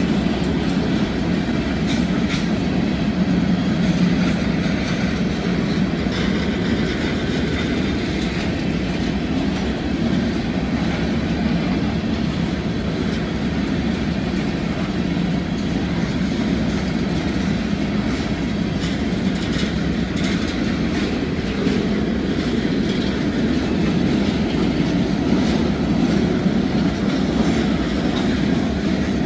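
Freight train cars rolling steadily past: a continuous rumble of steel wheels on rail, with scattered clicks as the wheels cross rail joints.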